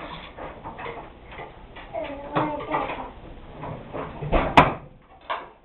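Dishes and silverware being unloaded from a dishwasher: light clinks and rattles, with one sharp clatter about four and a half seconds in.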